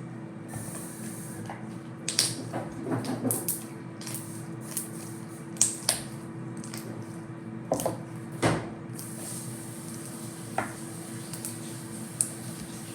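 Slime being worked by hand or stirred in a container: scattered wet squelches, clicks and taps, over a steady low hum.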